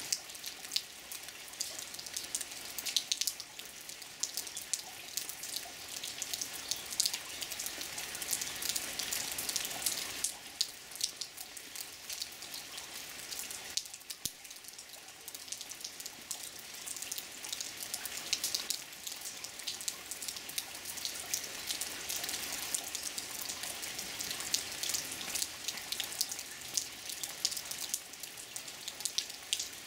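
Rain falling steadily, a hiss made of many separate drops ticking down; it eases a little for a few seconds midway.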